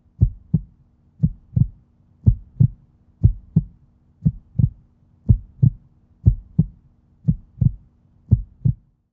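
Heartbeat sound, a steady double thump (lub-dub) about once a second, over a faint steady low hum.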